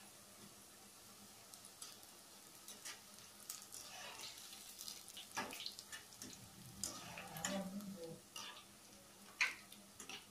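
Boondi (gram-flour batter drops) deep-frying in hot oil with a faint sizzle, while a metal spatula stirs and scrapes through them in the pan. A few sharp clinks of metal on the pan come through, the loudest near the end.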